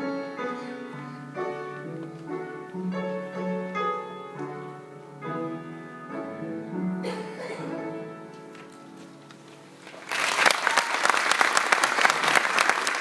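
Closing notes of a live song fading out, followed about ten seconds in by a sudden burst of audience applause that is louder than the music.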